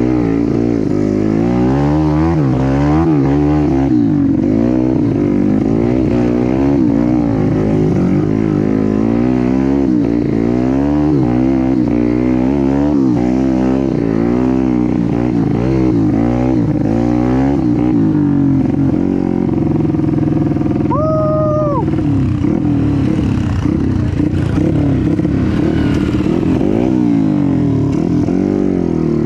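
Trail motorcycle engines revving up and down over and over, with the pitch constantly rising and falling as the throttle is worked over slippery ground. There is a short steady beep about two-thirds of the way through.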